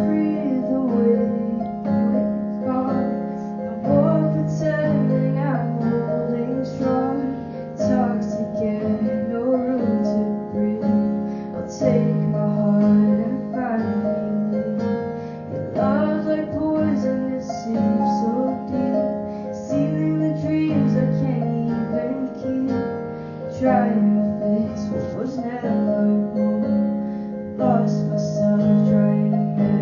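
A piano playing held chords, the low notes changing about every four seconds, with a voice singing over it, roughly recorded.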